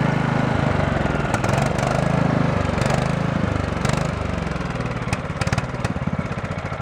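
Small riding-mower engine running, its speed rising and falling, then settling to slower, quieter firing pulses near the end.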